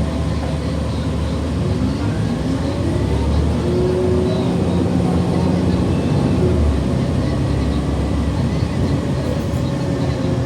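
City transit bus engine and drivetrain running as the bus drives, heard from inside the cabin. A steady low rumble, with a whining note that rises and falls in pitch.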